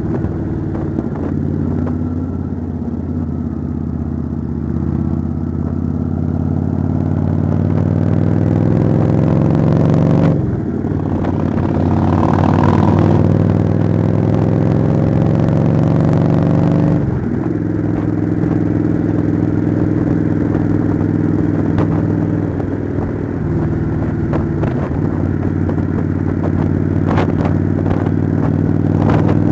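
Kawasaki Vulcan motorcycle's V-twin engine running under way, its pitch climbing as it accelerates, with a gear change about ten seconds in and another about seventeen seconds in.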